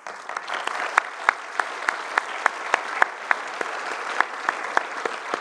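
Audience applauding: a steady patter of many hands, with one pair of hands clapping close to the microphone in sharp, regular claps about three a second.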